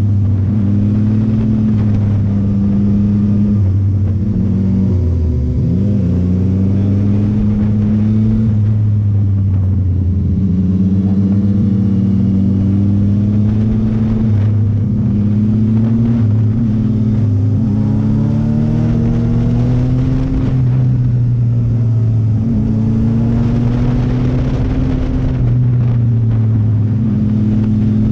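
Sport motorcycle engine running under load on a twisty road, its pitch repeatedly rising and dropping with throttle and gear changes, over a steady rush of noise.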